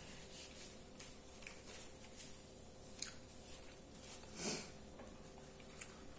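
Faint closed-mouth chewing of a mouthful of hamburger bun: soft wet smacks and small clicks, with one louder short sound about four and a half seconds in.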